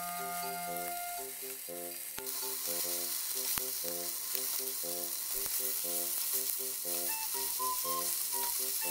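Chicken pieces sizzling in a nonstick frying pan, with a few sharp clicks of metal tongs as the pieces are turned and chunks of Japanese long onion and shishito peppers are added.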